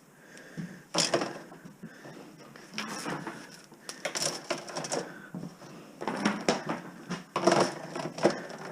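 Irregular sharp clicks, knocks and metallic clatter from copper wire and scrap being pulled and handled, about half a dozen strokes over several seconds.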